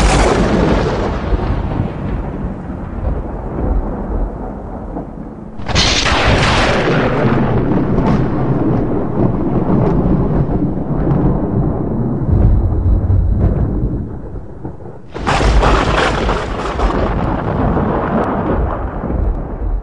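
Thunder. A rumble runs on from a clap just before the start, then two more sharp cracks come about six and fifteen seconds in, each followed by a long rumble that slowly dies away.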